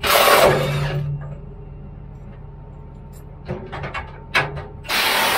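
Two loud blasts, about a second each, from a handheld blower (or air nozzle) blowing dust out of a machine's hydraulic compartment: one at the start and one near the end. Between them come a few knocks and clicks over a low steady hum.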